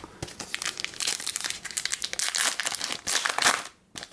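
Foil-plastic wrapper of a Topps Chrome trading-card pack crinkling and tearing as it is ripped open by hand, in a run of dense crackles that is loudest near the end.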